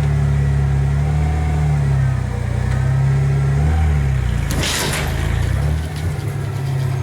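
Old Ford truck engine running hard under load, its pitch rising and falling slightly, as it pulls on the shed; a short noisy rush cuts in about four and a half seconds in.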